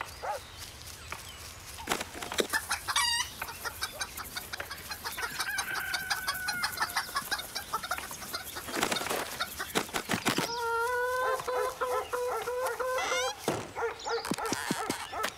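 Chickens clucking in quick, repeated bursts, with a long held crow in the latter half.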